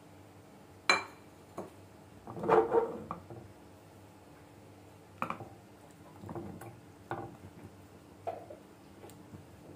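Kitchen clatter of dishes and utensils around a frying pan: a sharp clink about a second in, a louder clatter around two and a half seconds in, then scattered lighter knocks and scrapes as marinated chicken pieces are stirred in the pan with a spatula.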